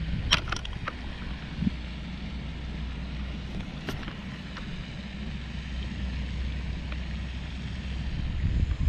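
Wind rumbling on the microphone, with a few sharp clicks from a baitcasting reel being handled, near the start and again about four seconds in.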